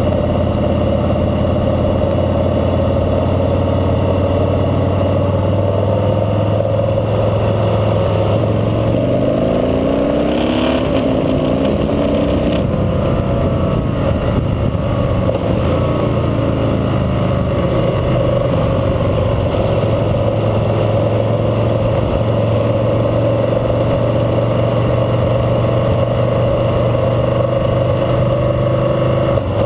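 Harley-Davidson Fat Boy Lo's V-twin engine running under way, heard from the rider's seat. About ten seconds in, the engine note dips and then climbs as the bike accelerates, then settles into a steady cruise.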